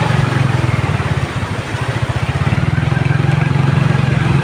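Small motorcycle engine running close by with an even, pulsing hum that grows louder from about halfway, over the rush of floodwater.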